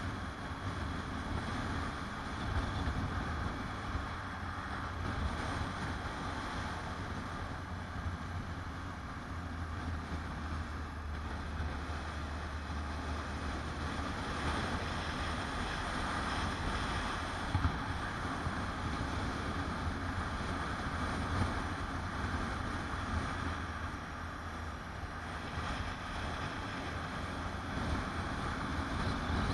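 Motorcycle engine running steadily at road speed, with wind rushing over the camera's microphone.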